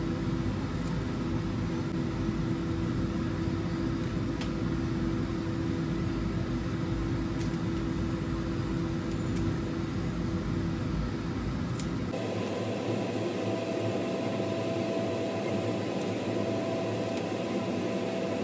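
A steady whirring machine hum with a hiss, with a few faint clicks. About twelve seconds in it switches abruptly to a thinner hum with a higher steady tone and no deep rumble.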